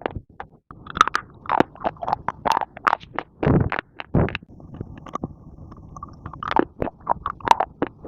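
Pieces of baked clay being bitten and chewed close to the microphone: a string of irregular, sharp crunches, several a second.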